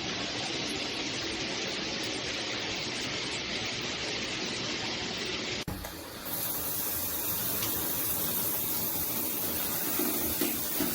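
Water spraying steadily from a filtered shower head. The sound changes abruptly a little past halfway.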